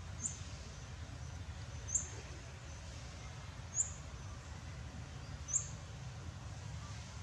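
Forest ambience: a short, high bird chirp repeating about every two seconds, five times, over a faint steady low rumble.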